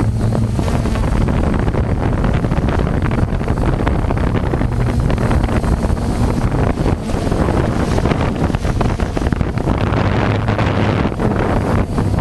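Wind buffeting the microphone in heavy, rumbling gusts, over a steady low motor hum.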